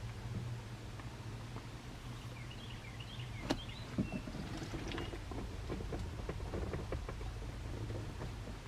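Two sharp knocks followed by a run of small clicks and rattles, like things being handled and moved, over a steady low hum, with a few short bird chirps about three seconds in.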